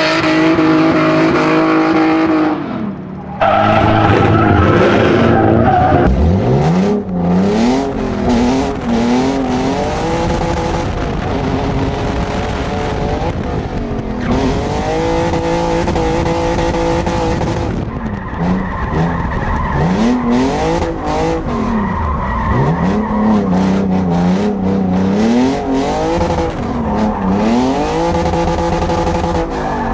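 Hyundai Genesis Coupe drifting: the engine revs up and down over and over as the throttle is worked, with tyre squeal from the sliding rear wheels. About three seconds in, the sound switches from outside the car to inside the cabin.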